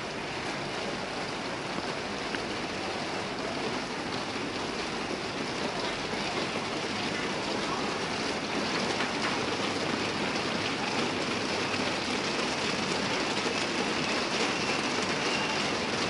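Steady rain falling on a wet street, an even hiss that grows a little louder over the stretch.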